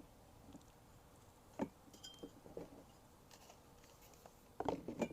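Faint, scattered clicks and clinks of small hardware being handled: the cart's latch and its screws being set in place. One sharp click comes about a second and a half in, and a quick cluster of several clicks comes near the end.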